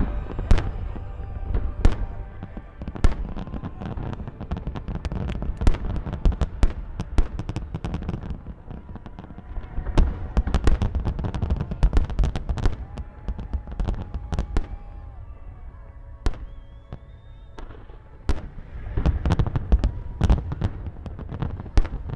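Fireworks display: aerial shells bursting in rapid, dense barrages, with heavier clusters about halfway through and again near the end and a short thinner spell between them.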